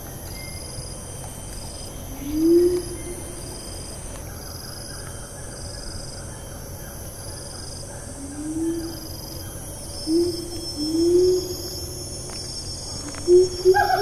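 Siamang (Symphalangus syndactylus) calling: a few short low hoots rising in pitch, one about two seconds in and several between eight and eleven seconds, then louder, faster calls with more overtones starting near the end. Behind it, rainforest insects keep up a high whine that rises and falls about every two seconds and an evenly pulsed high chirp.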